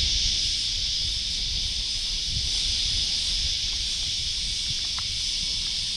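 A chorus of cicadas gives a steady, high-pitched shrill buzz without a break. Wind rumbles on the microphone underneath it.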